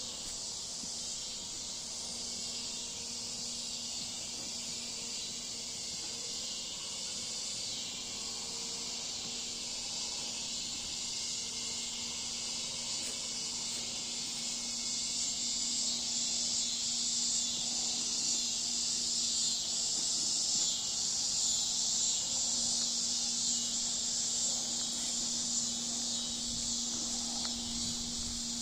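Cicadas singing in a continuous chorus, a dense high buzz that swells louder about halfway through. A faint, steady low hum runs underneath.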